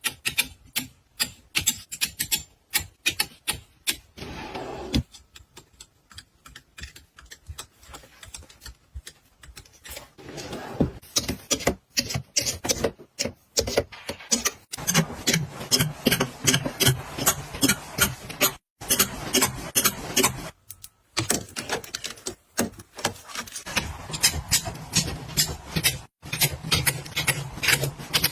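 Dense, quick clicks and taps of small household items being picked up, set down and arranged, with light rubbing and rustling; the tapping thins out for a few seconds early on and is busiest in the second half.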